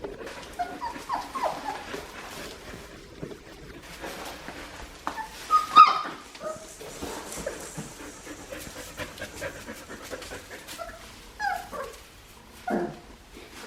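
Four-week-old Australian Shepherd puppies whimpering and yipping in short, high cries, with the loudest yelp about six seconds in. Light clicks and knocks are heard among the cries.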